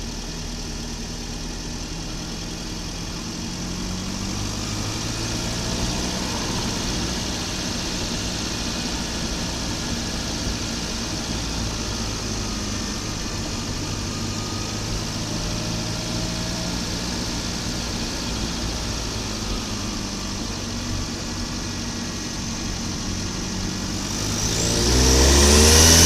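Volvo 940 Turbo's B230FT turbocharged four-cylinder engine running at low, fairly even revs, then revving up hard near the end with a rising whine.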